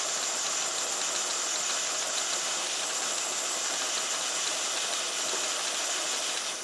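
Steady hiss of steam escaping through the float valve of a COSORI electric pressure cooker's lid as it comes up to pressure, before the float-valve pin pops up and seals.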